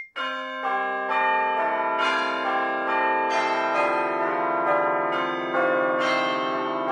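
A peal of bells: overlapping strikes at different pitches, about two a second, each note ringing on under the next.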